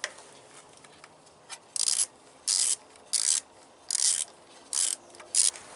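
Six short rubbing or scraping strokes, evenly spaced a little under a second apart, like something being wiped or scrubbed by hand.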